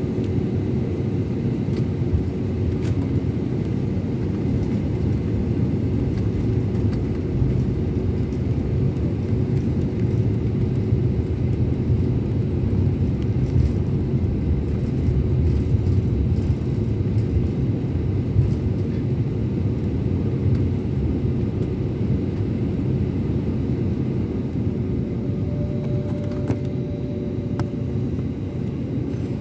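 Jet airliner cabin noise while taxiing: a steady low rumble from the engines and the rolling aircraft, with a faint steady hum running through it.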